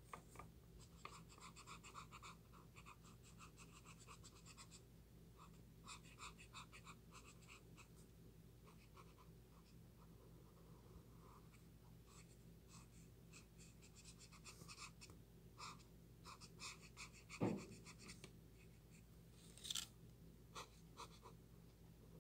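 An alcohol-based ShinHan Touch Twin marker's nib rubbing across paper in quick scratchy back-and-forth strokes, coming in bursts with short pauses between. About 17 seconds in, one brief louder sound falling in pitch stands out. A faint steady hum sits underneath.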